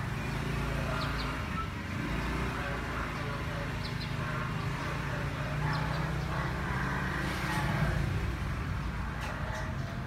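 Steady low engine rumble, with faint short high chirps every second or two.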